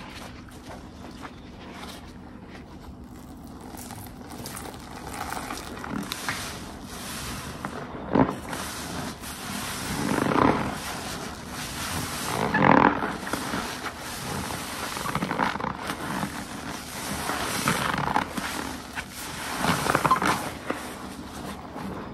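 Sponge soaked with soapy detergent being squeezed again and again, each press a wet, foamy squelch that swells and fades. The presses come every two to three seconds after a quieter start, the loudest about two-thirds of the way through.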